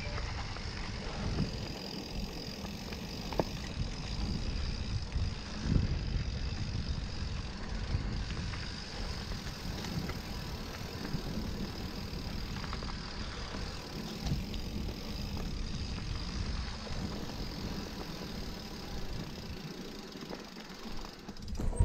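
Specialized Turbo Levo SL e-mountain bike being ridden on a dirt trail: a steady rumble from the tyres and air, with scattered knocks and rattles from the bike over bumps.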